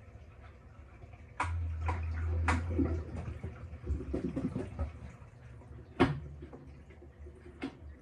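Panasonic top-loading washing machine mid-cycle: its motor hums steadily for about a second and a half, then water sloshes and drips in the tub. Several sharp clicks come through, the loudest about six seconds in.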